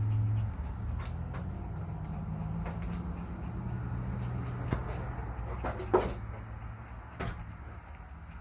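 A few light clicks and taps from handling a plastic syringe and vaccine vial while drawing up the dose, the loudest about six seconds in, over a steady low hum.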